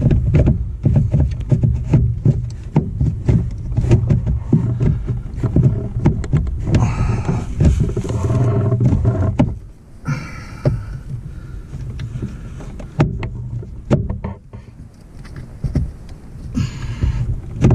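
Plastic knocks, clicks and scraping as a replacement heater blower motor is pushed up into its plastic housing under a Jeep TJ dash and twisted to seat it. The handling gets quieter a little past halfway.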